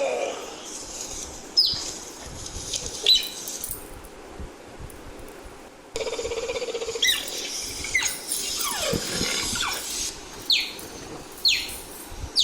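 Cheetah chirping: a series of short, high, bird-like chirps that fall quickly in pitch, spaced a second or more apart. About six seconds in comes a brief buzzy stutter, and a few seconds later a single lower call that slides down.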